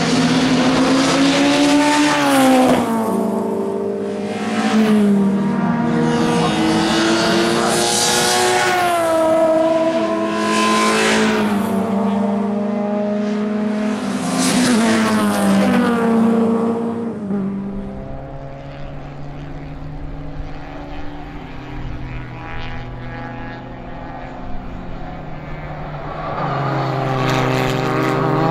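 Historic racing cars' engines revving hard as the cars accelerate past one after another, pitch climbing and dropping back again and again with the gear changes. The engines fade to a quieter, more distant note for several seconds, then a car comes close and loud again near the end.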